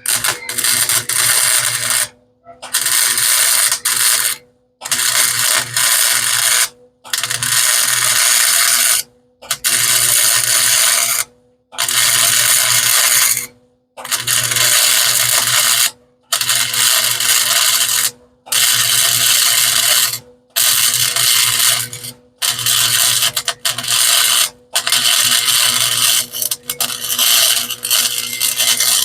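Welder arc crackling in repeated runs of about two seconds each, broken by short pauses, as a weld bead is laid in stitches along the edge of a shock mount.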